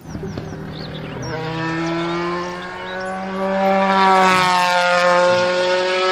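Race-car engine sound: a steady pitched engine drone that begins about a second in and grows louder, dropping slightly in pitch around the middle before holding steady.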